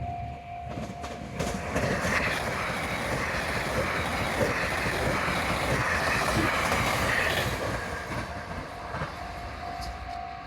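A JR 273 series Yakumo limited express electric train passing over a level crossing. Its wheel and running noise swells about a second and a half in and drowns the crossing's repeating electronic bell until it fades near the end, when the bell is heard ringing again.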